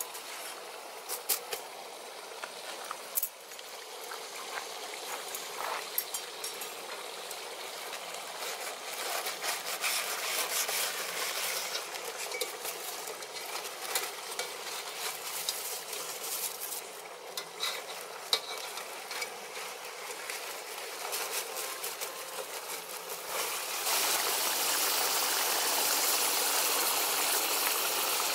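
Clicks and scraping of a metal skewer on a foil-covered iron kadai over a wood fire. About 24 s in, a louder, steady sizzle of goat leg roasting in its oil in the pan takes over.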